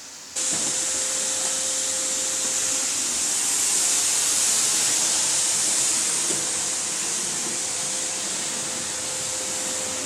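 Household vacuum cleaner switched on about a third of a second in, then running steadily with a hissing rush and a faint steady hum.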